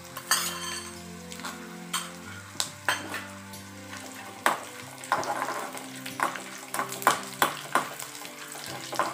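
Peanuts, dals and chillies sizzling in hot oil in a metal kadai while a metal spoon stirs them, clinking and scraping against the pan many times.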